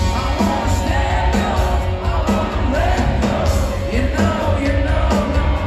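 Live rock band playing, with a singer's voice over bass, drums and guitars, heard from within the audience with a heavy, booming low end.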